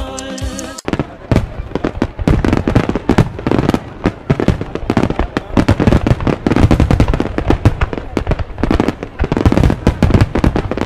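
Music cuts off about a second in, and a barrage of fireworks follows: rapid, overlapping bangs and crackling bursts, several a second.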